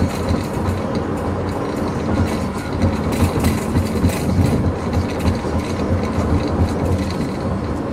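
Car road noise heard from inside the cabin: a steady low rumble with frequent small rattles and knocks.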